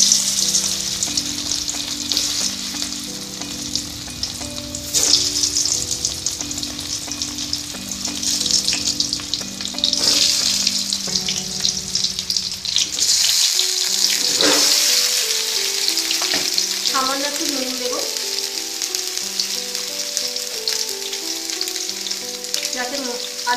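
Boiled, peeled potatoes going one by one into hot mustard oil in a kadai, the oil sizzling steadily. The sizzle flares up louder several times as more potatoes go in.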